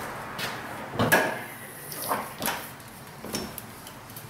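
A handful of short knocks and clatters, the loudest about a second in, like objects being handled or set down.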